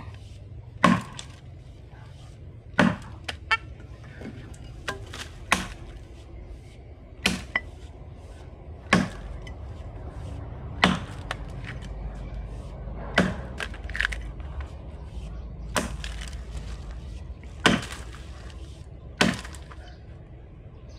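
Felling axe chopping into wood: a sharp strike roughly every two seconds, with a few lighter knocks in between.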